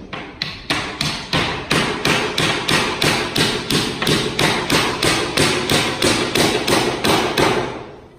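Hammer blows on a door frame: a steady run of about three strikes a second that stops near the end.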